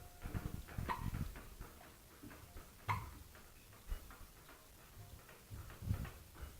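Baby hiccuping: two short, sharp hics about two seconds apart, with a couple of faint low bumps after them.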